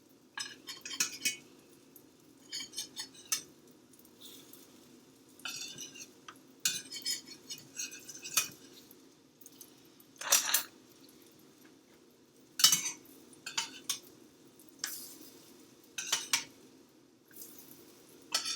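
Spatula scraping and tapping against a frying pan while flipping mini pancakes, in short irregular strokes. The loudest scrapes come about ten and twelve and a half seconds in.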